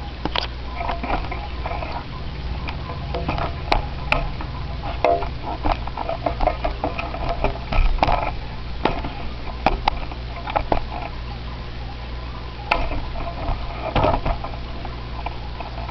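Steady low hum of aquarium equipment, with irregular clicks, taps and crackling over it.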